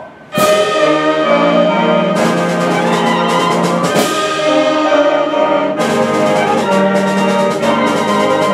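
Middle school concert band playing a fanfare: brass and woodwinds come in together on loud held chords about half a second in, with accented percussion hits about every two seconds.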